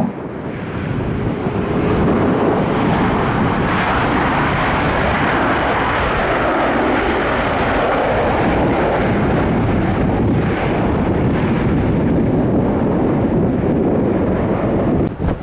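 Airliner's jet engines heard as the aircraft goes by: a dense, steady engine noise that builds over the first two seconds and then holds loud.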